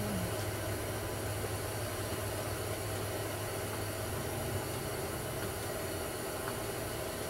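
A steady low mechanical hum with a constant hiss over it, like a motor or engine running without change.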